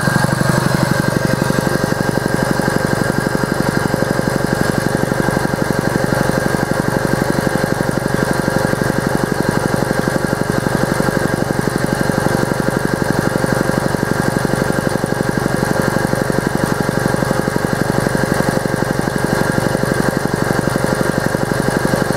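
1970s-era belt-driven two-stage air compressor running steadily, its pump beating with a fast, even pulse. It is near the top of its pressure range, shortly before it cuts off.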